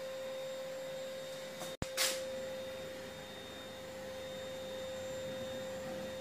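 A steady, high-pitched electrical whine over faint hiss. It cuts out for an instant about two seconds in, then a short rustle follows.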